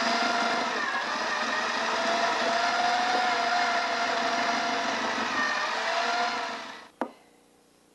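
Hand-held electric mixer running steadily with a whining motor, its beaters creaming thick butter and sugar in a glass bowl; the motor winds down about six and a half seconds in, and a single knock follows.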